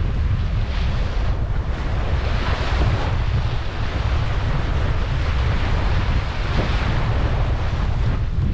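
Ocean surf breaking and washing up a beach, its hiss swelling and easing every second or two, over a heavy low rumble of wind on the microphone.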